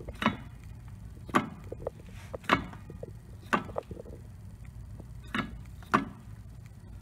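Sharp metallic clicks from a worn front driveshaft flex disc (guibo) on a 1999 Mercedes S320 as the shaft is rocked back and forth by hand, six clicks about a second apart with a gap in the middle. The clicking shows too much play in the cracked rubber disc and its bushings, the source of the clicking heard when shifting between drive and reverse.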